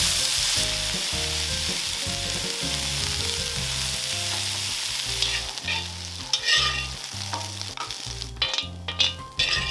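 Pieces of fresh red bell pepper sizzling as they fry in a wok. The sizzle is loudest over the first few seconds and thins out about halfway, with a few short scrapes and knocks of stirring in the second half.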